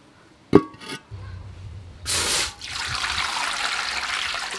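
An aluminium wok set down on a clay charcoal stove with a sharp metallic clang that rings briefly. About two seconds in, water starts pouring into the wok with a steady splashing.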